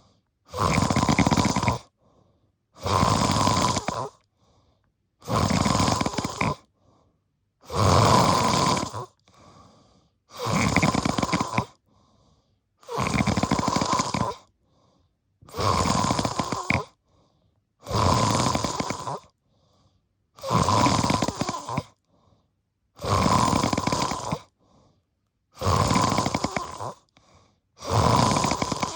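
Deep snoring, loud and rhythmic: one long snore about every two and a half seconds, each lasting over a second, with silence between.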